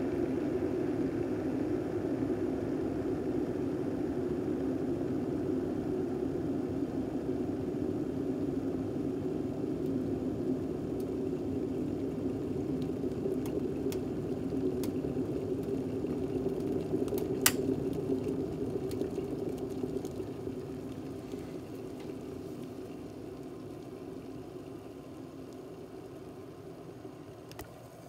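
Water at a rolling boil in a glass electric kettle, a steady bubbling hiss with scattered small ticks. A sharp click comes about two-thirds of the way in, after which the boil slowly dies down.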